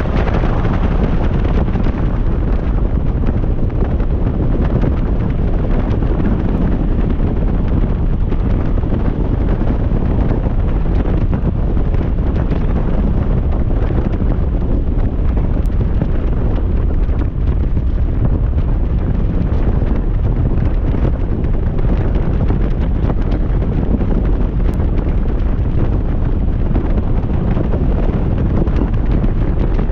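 Wind buffeting the microphone on a moving motorcycle: a loud, steady roar, mostly low, with the motorcycle's engine and road noise underneath.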